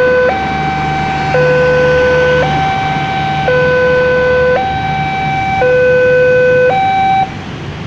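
Railway level-crossing warning siren sounding a two-tone low-high alternation, each note held about a second, which cuts off about seven seconds in. A low traffic hum runs beneath it.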